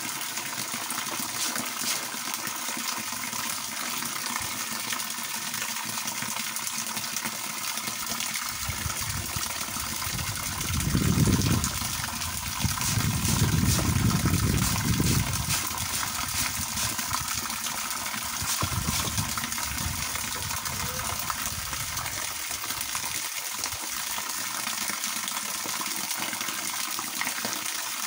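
Water pouring in a steady stream from a garden hose and splashing onto a person bathing and the ground below, with a louder, deeper spell about eleven to fifteen seconds in.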